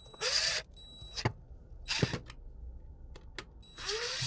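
Plastic boiler flue elbow scraping and squeaking against its seal as it is twisted and pushed into line on the flue turret, in three short scrapes about two seconds apart, with a few light clicks between them.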